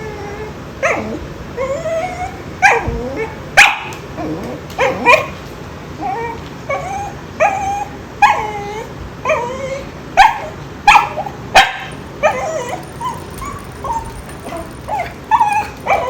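A small dog whining and yipping in a run of short, rising and falling cries, broken by several sharp barks.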